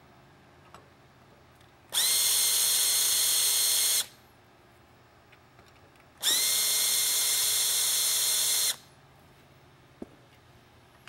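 Cordless drill/driver backing screws out of a floodlight's reflector panel, in two runs of about two seconds each. Each whine rises briefly in pitch as the motor spins up, then holds steady. A single sharp click near the end.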